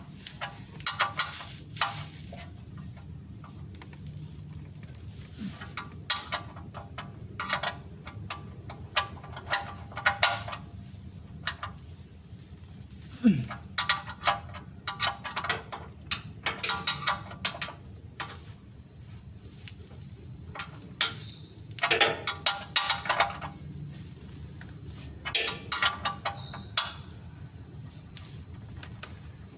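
Hand tools and metal parts clicking and clattering in short, irregular bursts, with ratchet-like clicking, during work on a car's oil filter and drain area.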